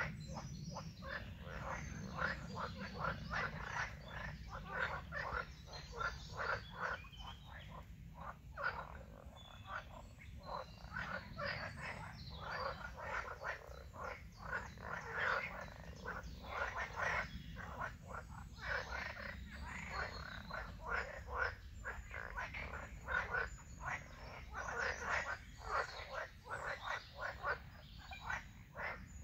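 A chorus of many frogs croaking together, dense overlapping croaks several a second without a pause.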